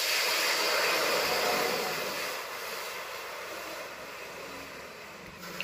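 Water poured into a hot, empty kadai hissing and sizzling as it flashes to steam, loudest at first and slowly dying away.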